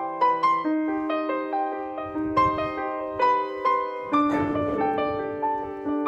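Background music: a piano melody of single struck notes, each ringing on under the next, with a lower note coming in about four seconds in.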